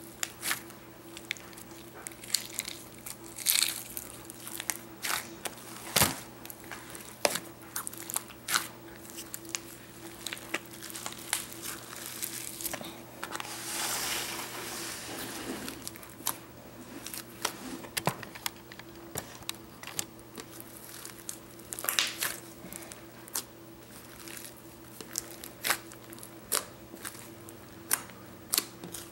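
Hands squishing, stretching and poking a large mass of mixed slime, with irregular sticky pops and crackles, a few of them sharp, and a softer hissing stretch about halfway through.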